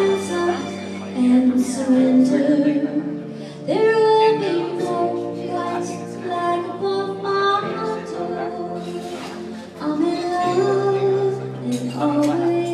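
A woman singing into a microphone with instrumental accompaniment, holding long notes.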